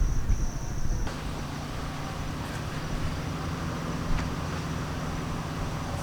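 Outdoor ambience on a windy ridge: a steady high insect drone over low wind rumble, which cuts off abruptly about a second in. It gives way to an even wind hiss with a steady low hum beneath.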